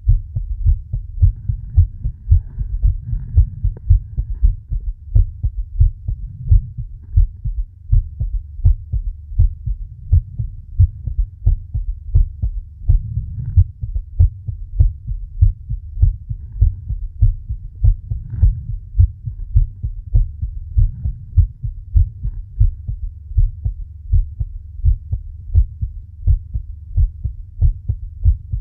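A person's heartbeat, close up: a steady, even run of low paired thumps, with soft breathing swelling in and out every few seconds.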